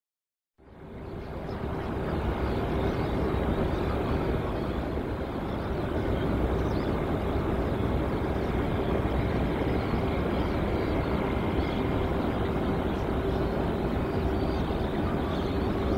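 After a brief moment of silence, steady distant jet aircraft engine noise fades in and holds: an even rumble with a constant hum running through it.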